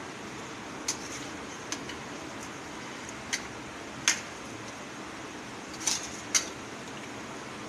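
Metal spoon clinking and tapping against an aluminium cooking pot as chicken korma is spooned onto layered rice: about six sharp, irregular clinks, the loudest about four and six and a half seconds in, over a steady background hum.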